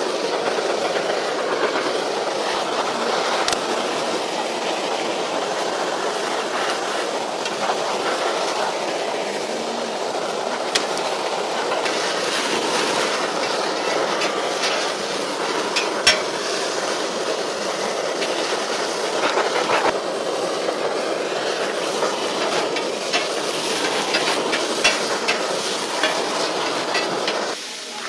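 Mushrooms and shrimp sizzling steadily on a hot flat-top griddle, with now and then a sharp clink of the metal spatula against the steel.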